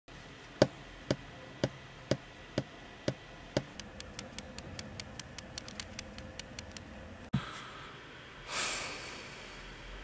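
Fingers knocking on a wooden desk, seven even knocks about two a second, followed by a quicker run of light ticks. A single thump comes about seven seconds in, then a short rush of noise that fades.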